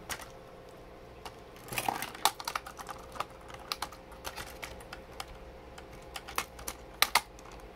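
Plastic LEGO pieces and a minifigure being handled and pulled apart: irregular small clicks and clacks, with a quick flurry about two seconds in and two sharp clicks near the end.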